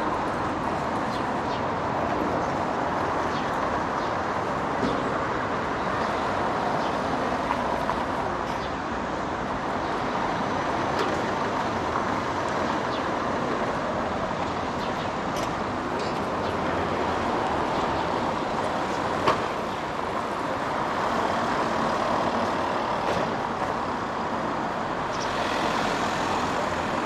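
Steady road traffic noise from passing cars and buses, with scattered light clicks and one sharper click about two-thirds of the way through.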